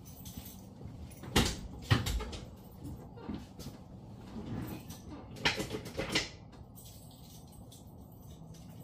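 Car door of a 1984 AMC Eagle being opened and shut: two pairs of sharp clunks, the first pair a little over a second in and the second about five and a half seconds in.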